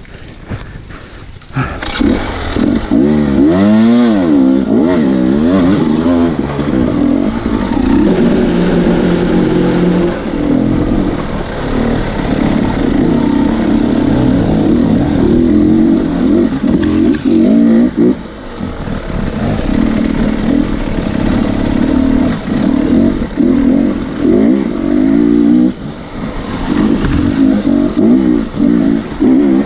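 Dirt bike engine revving hard and unevenly under load, its pitch swinging up and down quickly as the throttle is worked. It picks up about two seconds in after a brief lull, with short easings off later on.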